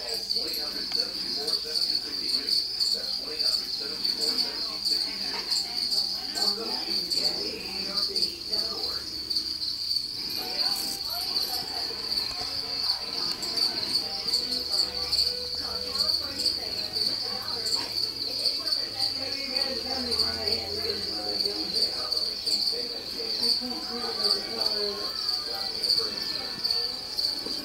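Crickets chirping in a continuous high-pitched trill that holds one pitch throughout.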